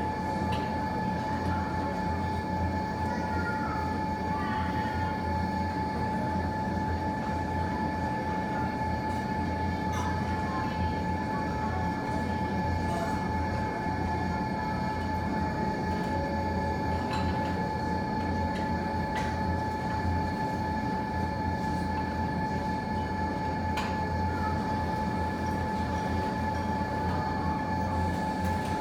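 Steady low rumble with a constant high-pitched hum, and a few sharp pops from the fireplace fire scattered through it.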